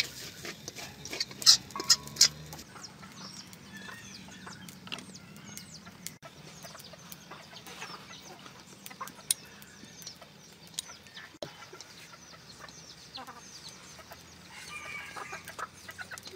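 Chickens clucking and chirping in the background. A few sharp loud clacks come in the first two seconds.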